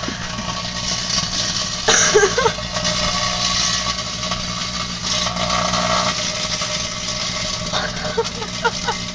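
Microwave oven running with a steady low hum while metal foil inside arcs and sparks, making a continuous crackling sizzle that flares loudest about two seconds in.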